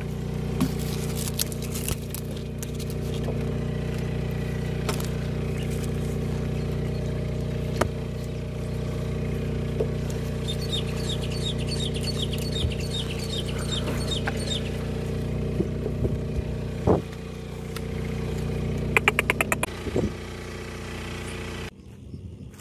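A vehicle engine idling steadily, with scattered clicks and knocks over it and a short run of quick, high chirps about halfway through. The engine hum cuts off suddenly near the end.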